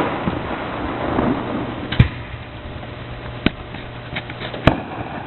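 Fireworks shells bursting overhead: three sharp bangs about two, three and a half and four and a half seconds in, the first the loudest, with rolling rumble and faint crackle between them.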